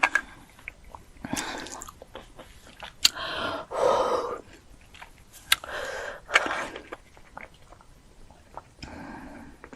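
Close mouth sounds of a person eating a very hot chip: chewing with sharp clicks, broken by several short, noisy breaths.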